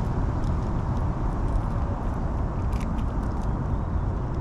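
Steady low rumble, with a few faint clicks about three seconds in from small scissors snipping the excess PVA tape off a solid bag.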